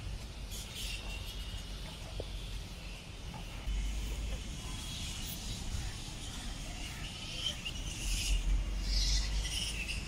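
Garden ambience: birds chirping and insects calling, the calls a little louder near the end, over a low rumble.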